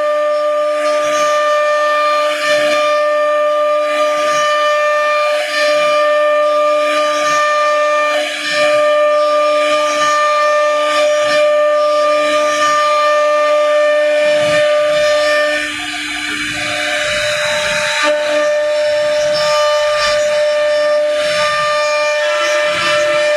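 CNC router spindle running with a steady high whine while its bit carves a flower pattern into wood, with the rough cutting noise coming and going over it. About 16 seconds in the sound drops and thins for a couple of seconds, then picks up again.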